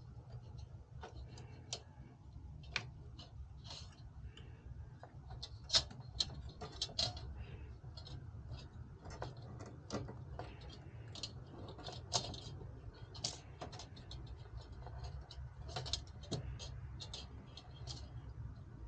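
Irregular small clicks and taps, a few sharper ones about six to seven seconds in, over a steady low hum.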